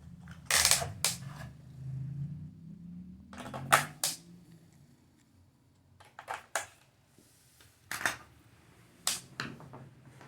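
Hard plastic toy parts being handled and set down on a surface: a series of sharp clicks and knocks in small clusters, with a faint low hum under the first few seconds.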